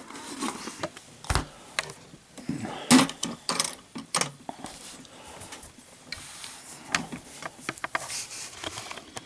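Hands opening the packaging around a Zippo lighter: scattered clicks, knocks and rustles, with a dull thump about a second in and a sharper knock about three seconds in.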